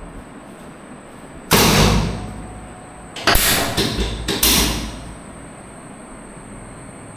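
A loud thump that rings out briefly, then about two seconds later a quick run of three or four more thumps.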